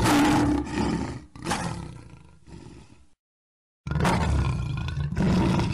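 The MGM logo's lion roar sound effect (the 2017 version), roaring in two goes. The first roar swells again about a second and a half in and then fades out. After a short break of complete silence, a second roar comes about four seconds in.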